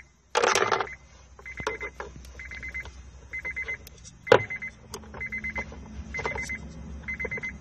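A high electronic beep repeating about once a second, like a warning chime, over plastic handling noises; a screwdriver prying the glove box's plastic retaining clips gives one sharp snap about four seconds in.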